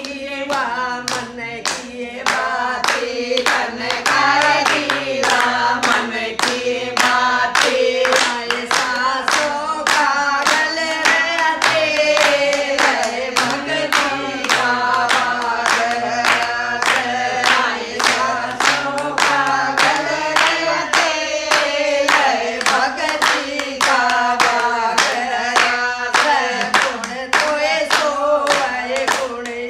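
A group of women singing a Hindi devotional bhajan together, clapping their hands in a steady beat of about two claps a second.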